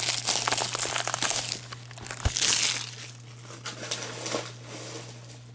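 Plastic packaging crinkling and rustling as it is handled: dense for the first second and a half, with a sharper burst a little past two seconds, then lighter rustles. A steady low hum runs underneath.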